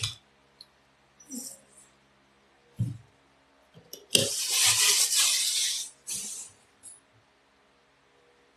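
Unboxing handling noise: a few light knocks and a low thump, then a loud burst of rustling from packaging lasting about two seconds, starting about four seconds in.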